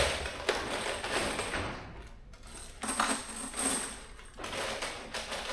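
Loose steel washers and bolts clinking and clattering as they are handled and sorted, irregularly, with a sharp clack right at the start.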